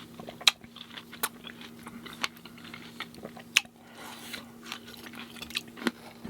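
Close-miked chewing of a mouthful of fresh fruit in coconut water: soft, wet, irregular mouth sounds with several sharp clicks.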